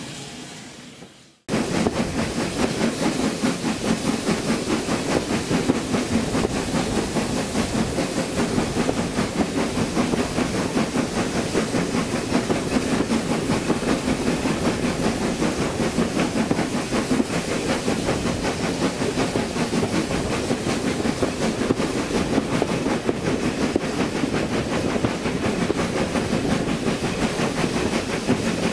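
Steam locomotive running with its train: a loud, steady mix of noise with a fast, even pulse. It cuts in abruptly about a second and a half in, after a short fade to silence.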